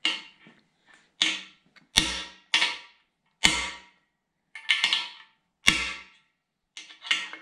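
A hammer driving frost plugs into the cast-iron block of a 454 big-block Chevy engine through a socket used as a driver: about nine sharp metallic blows, roughly one a second, each ringing briefly, a few of them heavier with a dull thud.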